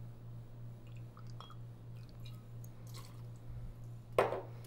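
Cointreau poured from its bottle into a small copper jigger. It is quiet, with faint small clicks over a low steady hum, and one short louder sound about four seconds in.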